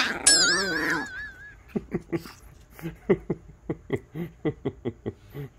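Small Maltese dog growling in short rapid pulses, about five a second, as it snaps at a hand. A high wavering whine fills the first second.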